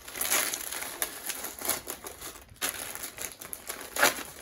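Red gift wrapping and white tissue paper crinkling and rustling in irregular crackles as a present is unwrapped by hand.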